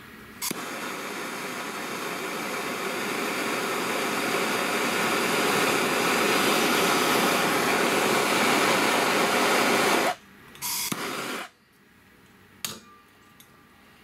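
Hand-held propane torch starting with a sharp pop and burning with a steady hiss that grows gradually louder, as its flame heats an oxygen sensor held in a vise to test the sensor's voltage output. The hiss cuts off suddenly about ten seconds in, followed by a brief second burst of hiss and a single click near the end.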